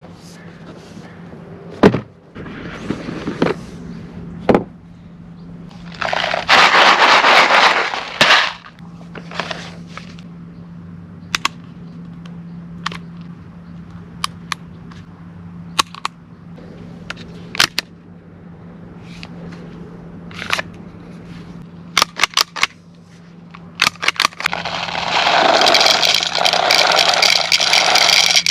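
Handling sounds of unboxing an airsoft pistol: packaging rustling and scraping in bursts, with scattered sharp clicks and knocks over a steady low hum.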